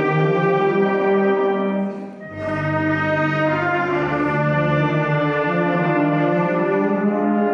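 A wind band of trumpets, clarinets and low brass playing a slow funeral march in held chords. About two seconds in the sound briefly drops away, then the next chord comes in fuller, with the low brass underneath.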